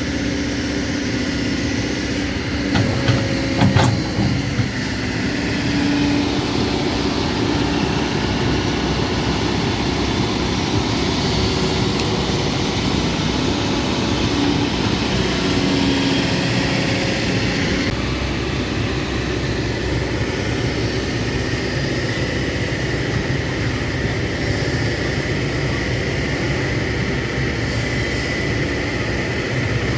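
Excavator's diesel engine running steadily under load, with a few sharp metallic knocks about three to four seconds in.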